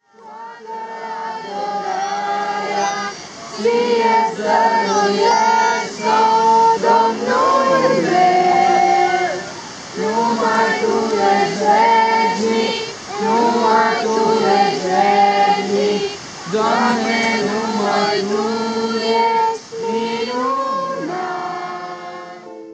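A group of voices singing a song together in held, changing notes, with short breaks between phrases. It fades in at the start and fades down near the end.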